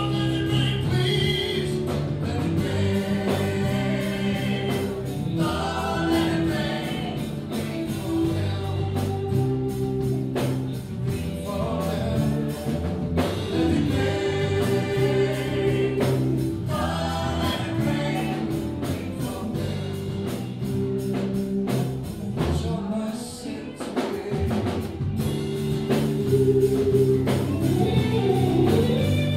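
A live band performing a song: several voices singing together with backing vocals, over acoustic and electric guitar and bass guitar. It grows a little louder near the end.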